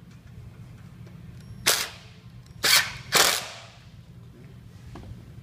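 Ridgid cordless driver running in three short bursts, driving screws into a pull-up banner's aluminium end bracket. The first burst comes a bit under two seconds in, and the other two follow about a second later, close together.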